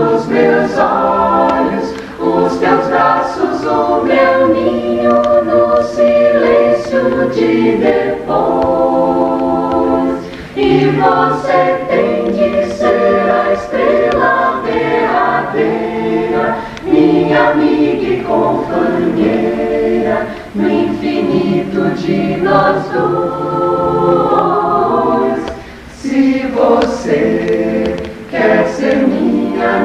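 Choir singing in multi-part harmony, holding sustained chords, with brief pauses between phrases.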